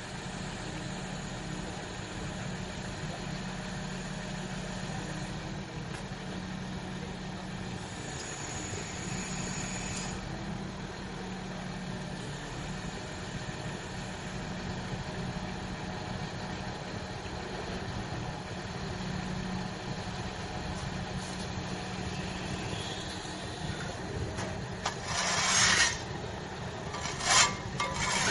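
A truck-mounted crane's engine running steadily as it hoists a precast concrete wall panel, a low even drone. Near the end a few loud, short bursts of harsh noise break in.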